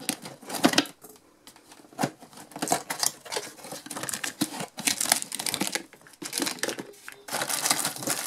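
Cardboard toy box being opened by hand: flaps pulled and torn open, with irregular scrapes, taps and rustles of cardboard and packaging. A denser, continuous crinkling starts about seven seconds in.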